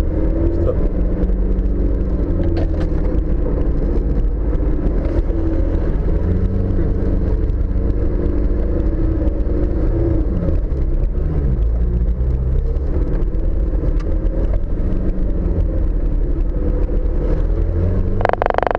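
Off-road 4x4's engine running steadily under load as it drives along a rough dirt track, its pitch rising and falling a little, with occasional knocks from bumps, heard from the bonnet. A brief loud burst of sound comes near the end.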